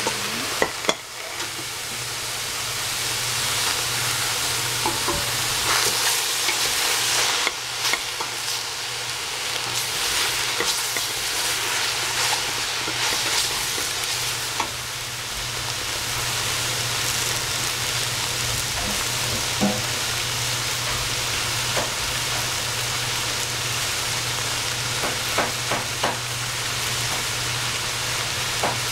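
Food sizzling steadily in hot oil in a pan, growing louder over the first few seconds, with a few light clicks of a utensil against the pan and a steady low hum underneath.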